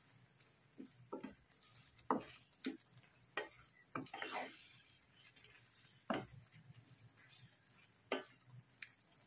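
Wooden spatula stirring whole shrimp in a buttery sauce in a nonstick frying pan, knocking against the pan in about ten irregular taps with a quieter stretch in the middle.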